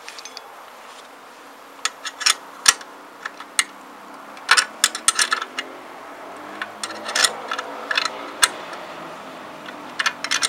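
Metal clinks and clicks from a hand tool tightening nuts on motorcycle footboard mounting bolts. The sharp clicks come irregularly, in short clusters about two, four and a half, seven and ten seconds in.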